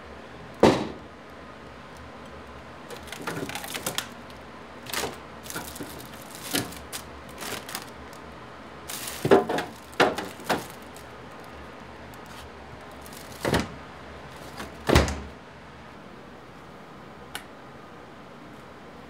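Irregular knocks and clatters of things being handled and set down, with a few sharper thuds.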